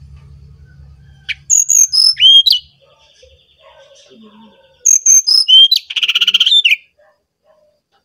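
Brown-chested jungle flycatcher singing: two loud phrases of quick clear whistled notes, each stepping down from very high to lower pitch; the second phrase ends in a short buzzy trill.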